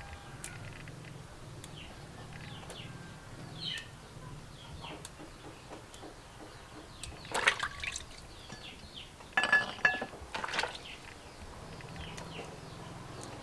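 Water splashing and dripping in a plastic basin as hands work small vegetables in it, with louder splashes and clatter about seven and a half seconds in and again around nine to ten seconds in.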